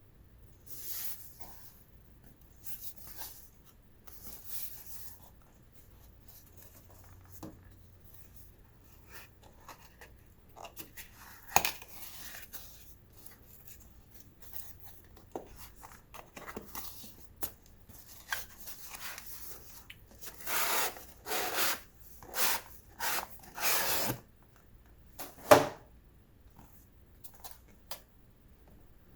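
Packaging being handled during a keyboard unboxing: soft rustling, rubbing and tearing with scattered small taps and clicks, growing into a run of louder rustles and tears in the last third, with one sharp click a little before the end.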